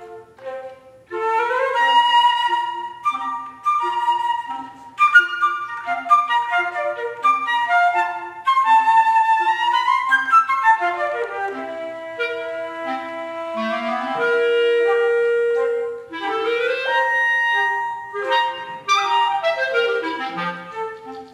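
Flute and B-flat clarinet playing a lively classical duet. Short, detached low notes repeat at an even pace under a quicker melody, then give way to longer held notes and fast rising and falling runs.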